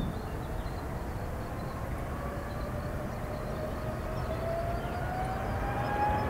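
Jet aircraft engine whine slowly rising in pitch over a low, steady rumble.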